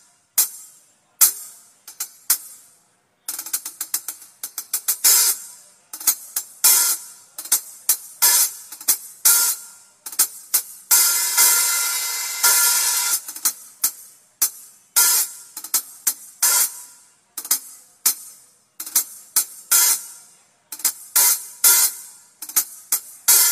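Drum kit cymbals and hi-hat struck one hit at a time during a soundcheck, with almost no low end. There is a quick run of hi-hat hits a few seconds in and a cymbal left ringing about halfway through.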